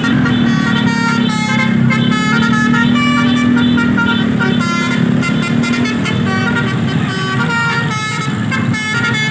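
Indonesian bus's 'telolet basuri' multi-tone musical horn playing a quick tune of short notes that step up and down in pitch, over the steady drone of the bus engine.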